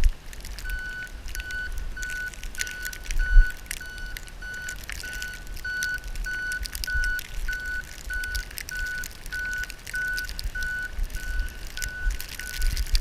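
A truck's reversing alarm beeping steadily, about two high beeps a second, over a low rumble of wind and engine, with one loud thump a little over three seconds in.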